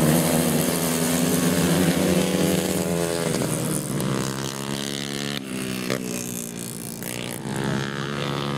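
A pack of grasstrack racing motorcycles at full throttle, several engines overlapping and revving up and down as they race through a bend and down the straight, growing quieter as they pull away.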